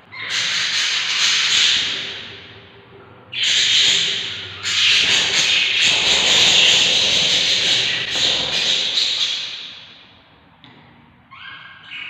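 Budgie chicks in the nest box giving raspy, hissing begging calls in three long stretches, the last lasting about five seconds, followed by a short higher-pitched note near the end.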